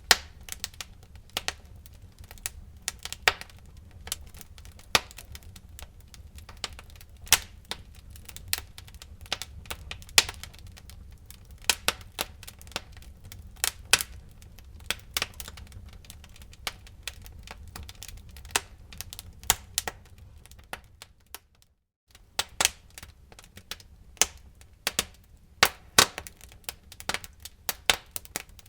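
Wood fire burning in a fireplace, crackling with irregular sharp snaps and pops over a low steady rumble. The sound drops out briefly about three-quarters of the way through, then the crackling resumes.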